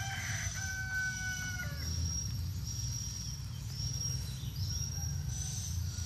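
A rooster crows once, a single held call lasting just over a second. Steady high insect chirring and a low rumble run underneath.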